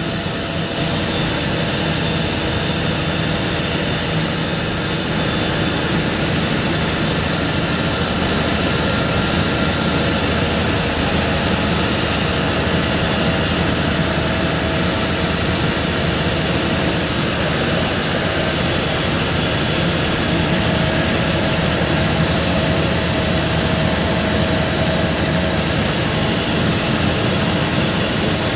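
Steady drone of a bus driving at highway speed, its engine and tyre noise heard from inside the cabin, with a thin steady high whine above it.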